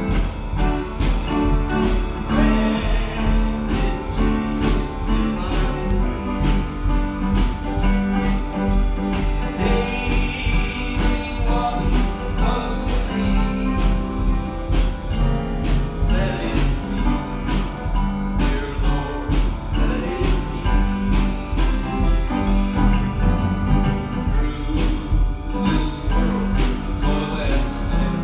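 Music with a steady beat, about two beats a second, and a singing voice in places.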